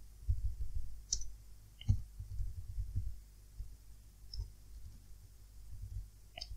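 Computer keyboard being typed on: irregular, quiet key taps, with a few sharper clicks about one and two seconds in and near the end.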